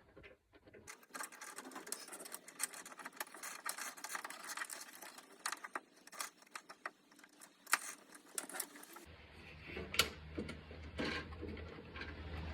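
Rapid, irregular light clicking and rattling of small metal parts and cable being handled and worked by hand, with a few sharper clicks near the end.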